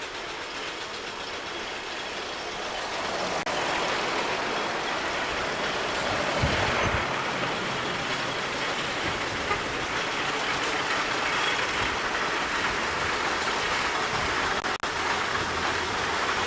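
Aveling & Porter steam roller running along a road towards the listener, its steam engine chuffing and iron rolls rumbling as a steady mechanical noise that grows louder over the first few seconds as it approaches. A short low thump comes about six seconds in, and the sound drops out briefly near the end.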